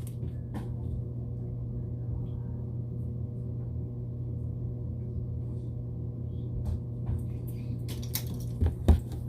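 A steady low electrical hum with a few soft clicks and taps near the end.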